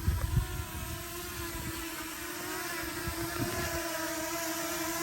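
Potensic Atom quadcopter's propellers whining steadily as it hovers, the pitch wavering slightly as the motors adjust. Several loud low gusts of wind rumble on the microphone in the first half second.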